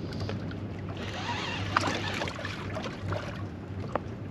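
Background noise aboard a small boat: a low steady hum under a wash of water and wind noise, with a few sharp clicks, one about two seconds in and one near the end.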